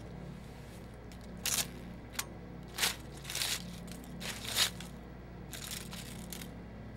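Dried flowers crunching and crackling as a hand crushes and pulls at them, in about six short rustles, over a low steady hum.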